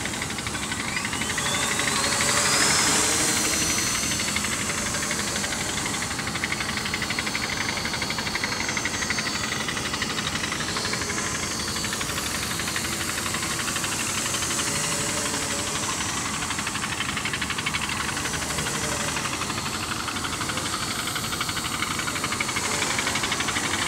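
T380 quadcopter's electric motors and propellers buzzing steadily in flight. A rising whine about one to three seconds in, with the sound briefly louder, as the motors speed up.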